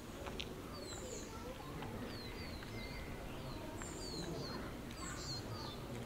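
Small birds chirping, with short, high, falling chirps repeating several times a second, over a low, steady background rumble.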